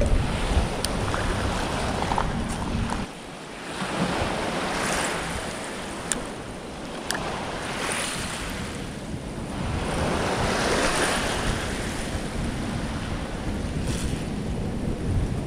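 Small waves washing onto a shell-covered shore, the hiss swelling and fading every few seconds, with wind rumbling on the microphone.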